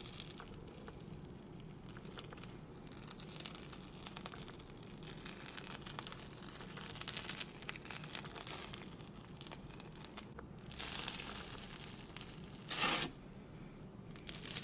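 Thick jelly slime being handled, its bubbly surface crackling and popping in many small pops, with a louder squish near the end.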